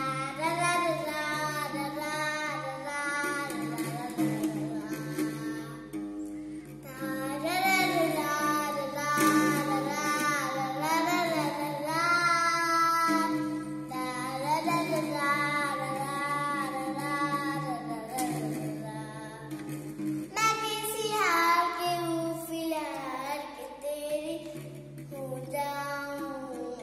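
A young girl singing a slow melody in phrases with short breaths between them, over a steady, held low accompaniment.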